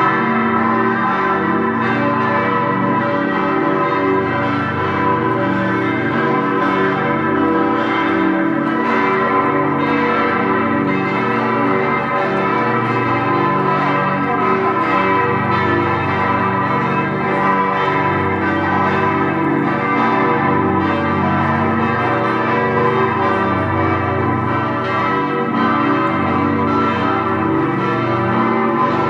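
A peal of six large Grassmayr-cast bronze church bells, tuned G, A, B, D, E and G with the heaviest weighing nearly six tonnes, all ringing together in full peal. Many overlapping bell tones sound continuously at a steady level, strokes of the different bells blending into one another.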